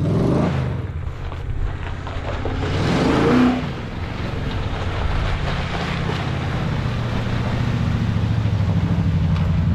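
Vehicle engine running steadily, its pitch rising briefly twice: near the start and about three seconds in.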